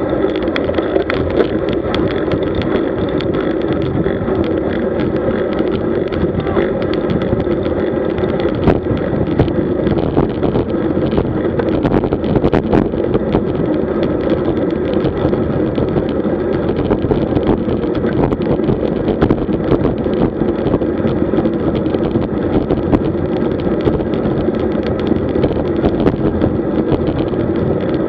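Steady rush of wind on the microphone and tyre and road noise from a road bicycle being ridden, with many small rattling clicks throughout.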